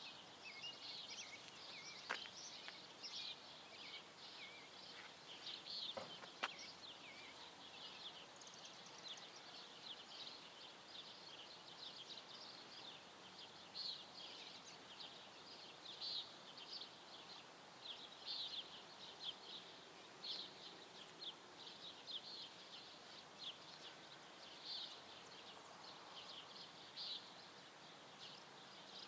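Faint outdoor chorus of birds chirping continuously in short, high, irregular notes. Two sharp clicks come about two and six seconds in.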